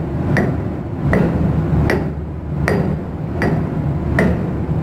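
Small hammer striking through a lead pad to drive a stainless steel seal part onto a centrifugal cargo oil pump's shaft, with six even blows about one every three-quarters of a second. The lead keeps the stainless from being damaged. A steady low hum runs underneath.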